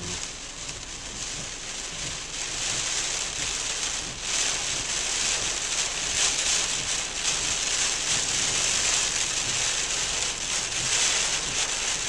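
Heavy rain pelting the car's windshield and roof, heard from inside the parked car: a dense hiss of drops that grows heavier a few seconds in.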